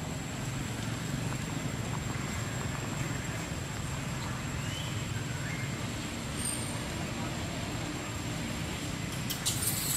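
Outdoor ambience: a steady low rumble under a thin, continuous high-pitched whine, with a few faint short chirps. Near the end comes a quick burst of sharp rustling clicks.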